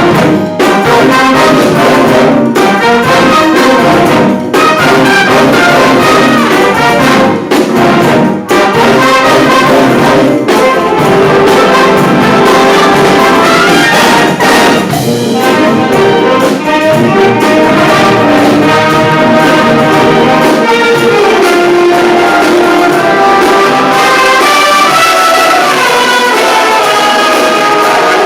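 Live band music led by brass, trumpets and trombones among it, playing loudly, with a few brief stops between phrases in the first ten seconds.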